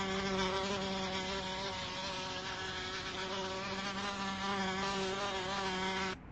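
Wasp buzzing in flight: one steady, slightly wavering buzz that cuts off suddenly about six seconds in.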